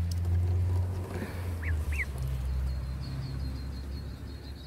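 Two short high peeps from a duckling about two seconds in, followed by faint high chirping, over a steady low rumble.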